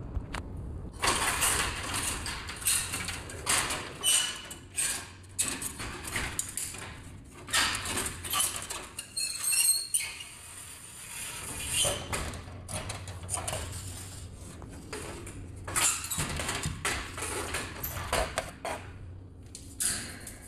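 Irregular metallic scraping and rattling as an old defrost heater rod is drawn out through a walk-in freezer's evaporator coil, over a low steady hum.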